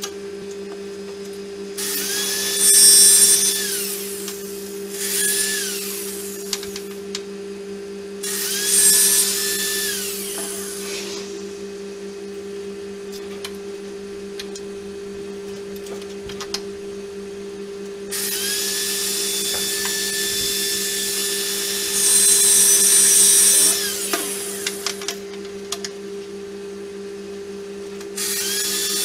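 Handheld electric drill run in several short bursts, each rising to a steady whine, holding, then winding back down as the trigger is released. A steady low hum runs underneath.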